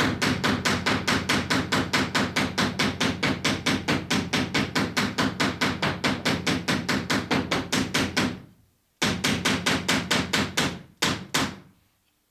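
Copper boat nail being riveted over a copper rove with quick, light taps of the rounded end of a hammer, about six a second, mushrooming the cut nail end while a dolly backs the nail head. The tapping breaks off briefly about two-thirds through, starts again, and ends with two separate taps.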